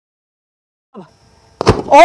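Silence for over a second, then sharp cracks from a sky shot firework battery's aerial shells, followed by a loud, high whistle that wavers up and down.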